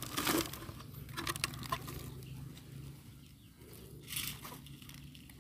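Intermittent rustling and scratching as hands pick through soil and litter for worms, in short irregular bursts, loudest at the start, about a second in and around four seconds in, over a steady low hum.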